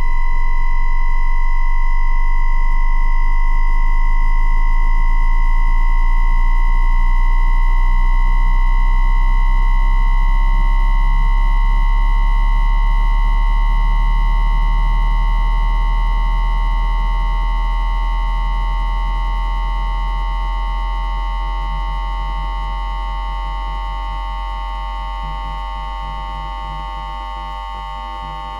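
Inductor-coil pickup of a JR East E2-1000 Series Shinkansen's 3-level IGBT VVVF inverter driving the traction motors under acceleration in asynchronous unipolar PWM mode, with a 1000 Hz carrier. A steady electronic whine near 2 kHz, with side tones that slowly glide apart as the motor speeds up, over a low hum; it grows gradually quieter in the second half.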